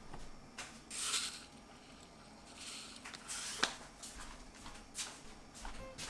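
Toasted sesame seeds sprinkled over a bowl of ramen, pattering onto the noodles and broth in a few short hissing bursts, about a second in and again around three seconds, with a sharp tick near the middle and a few lighter ticks after.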